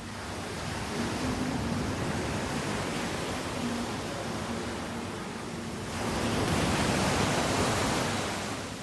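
Ocean waves breaking on a beach, a steady rushing wash of surf. It swells about a second in, then a louder wave surges in about six seconds in and fades away near the end.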